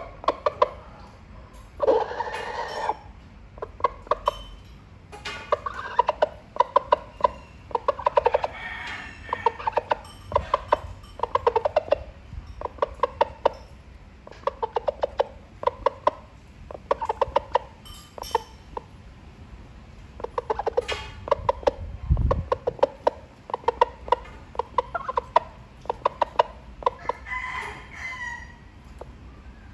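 Rooster calling hens with short runs of rapid clucks, repeated again and again, and a longer, louder call about two seconds in.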